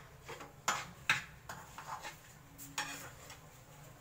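A wooden spatula and kitchen utensils knocking against a wok and a steel bowl: a handful of short, sharp clicks spread across the few seconds.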